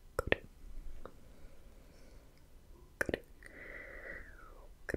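Slow ASMR mouth sounds made close to the microphone: sharp tongue clicks ('tk tk') in pairs, about a third of a second in and again at about three seconds, then a soft, breathy mouth sound lasting about a second, and one more click near the end.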